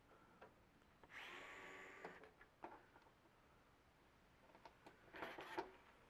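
Faint clicks and scraping of screws being worked out of a microwave oven's sheet-metal housing with a hand screwdriver. There is a scrape lasting about a second, about a second in, and a short clatter of clicks near the end, the loudest sound.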